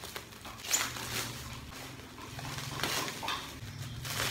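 A plastic mailer package being handled and pulled at by hand, with a few short rustles and scrapes over a low steady hum.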